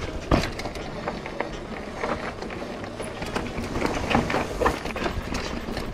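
Lapierre Zesty AM mountain bike rolling down rocky dirt singletrack: tyres crunching over dirt and stones under a steady rushing noise, with irregular knocks and rattles as the bike hits rocks. The loudest knock comes about a third of a second in.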